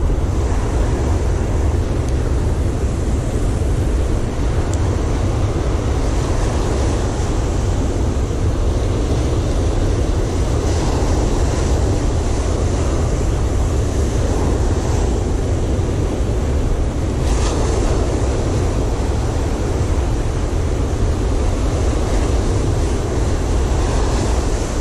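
Steady wind noise buffeting the microphone, over waves breaking on the beach.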